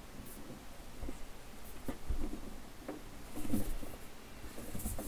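Handling noise as the Aoyue 474A++ desoldering station's case is turned over in the hands: scattered soft knocks, scuffs and rubbing against skin and the bench.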